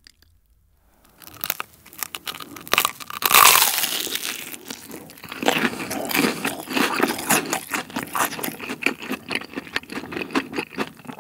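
Crunching bites into a deep-fried menbosha, shrimp paste sandwiched between slices of fried bread, then steady crisp chewing of the crust. The crunching starts a little over a second in and is loudest about three and a half seconds in.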